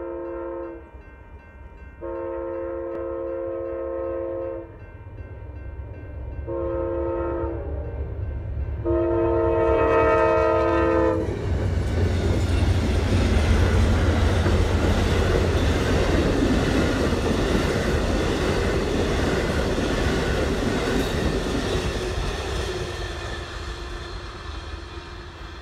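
Passenger train locomotive horn sounding the grade-crossing signal, long, long, short, long, with several notes sounding together. Then the Amtrak Coast Starlight passes close by: a loud rumble and clatter of wheels on rail that slowly fades near the end.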